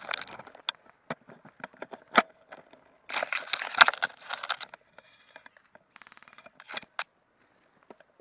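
Rustling with scattered sharp clicks and snaps. A louder, dense rustle comes about three seconds in, and a short, quick run of even ticks comes around six seconds in.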